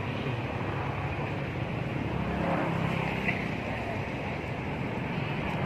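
An engine running steadily nearby: a continuous low hum over a haze of background noise.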